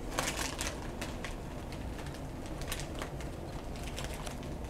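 Rustling and irregular light clicks from a phone camera being handled and turned around, over a steady room hiss.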